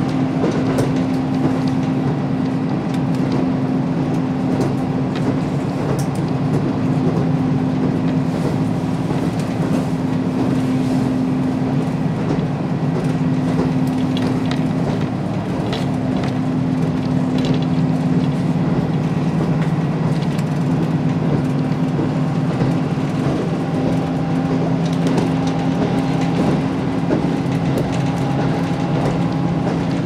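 Inside a KiHa 54 diesel railcar running at speed: a steady diesel engine drone under continuous wheel-on-rail rumble, with a few faint clicks from the track. A second, lower note in the drone grows stronger a little past halfway.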